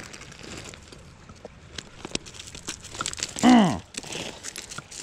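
Rubber boots crunching and shifting on loose creek gravel, with scattered clicks of stones knocking together. About three and a half seconds in comes a short, loud exclamation from a person, its pitch rising and then falling.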